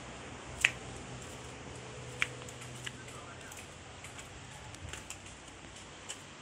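Handling noise from a handheld phone camera: a few sharp clicks and taps, the loudest about half a second in and another just after two seconds, over a steady low background hiss.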